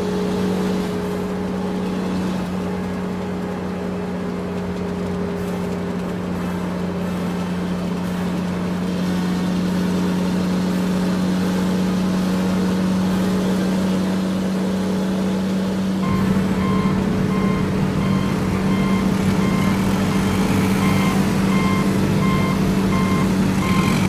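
Truck engine sound effect running as a steady low hum. About two-thirds of the way in, a repeating reversing beep joins it.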